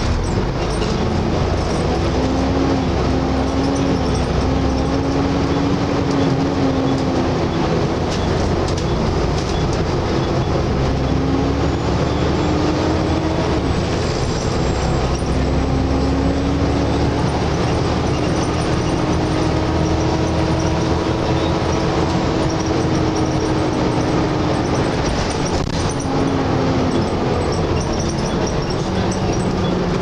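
Volvo B7TL double-decker bus under way, heard from inside the upper deck: a loud vacuum-cleaner-like 'hoover' whine over the engine drone and road noise, its pitch rising and falling several times as the bus changes speed.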